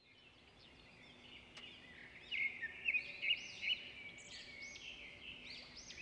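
Small birds chirping and twittering: many short calls overlapping, fading in at the start and loudest about two to four seconds in.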